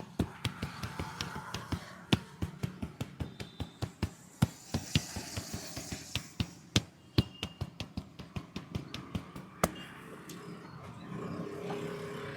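A barber's hands striking a head in quick, even rhythmic taps during a head massage, about four or five sharp slaps a second, stopping about three-quarters of the way through.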